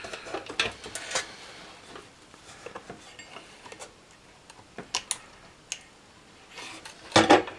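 Scattered light clicks and knocks of a circuit board being handled and lifted in a metal amplifier chassis, with a cluster of louder knocks near the end.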